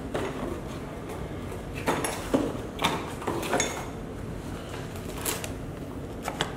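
A cardboard product box being handled and opened by hand: a scattered series of short scrapes and knocks as the box is moved and its lid pulled open.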